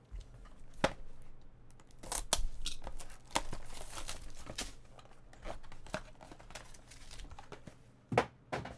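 A trading-card box being opened by hand: plastic wrap and packaging crinkling and tearing, with sharp clicks and knocks every second or so as the box is handled and its foil-wrapped pack is taken out and set down.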